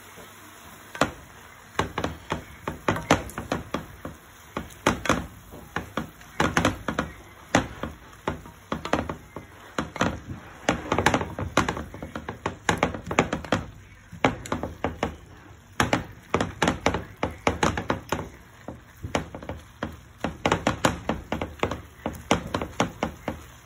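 Wooden spatula knocking and tapping against a frying pan while stirring cooked Swiss chard, in quick irregular runs of taps with short pauses.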